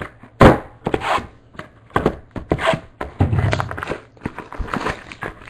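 Plastic shrink wrap being torn and crinkled off a sealed box of 2011 Topps Marquee baseball cards, in irregular rustles and crackles, with a sharp knock about half a second in as the box is handled.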